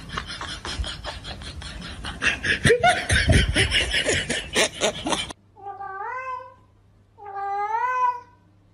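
A noisy stretch of clicks and clatter cuts off suddenly about five seconds in. Then a cat meows twice, two drawn-out calls that each rise and fall in pitch.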